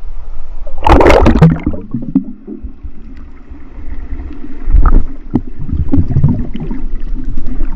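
A cliff jumper hitting the sea with a loud splash about a second in, then muffled underwater gurgling and bubbling as he plunges through the water, with a few more muffled knocks and swishes around the submerged camera.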